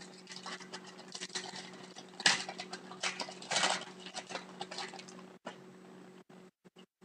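Hockey trading cards being handled and slid against one another, rustling with light taps. The sound is loudest in two short bursts, about two seconds and three and a half seconds in.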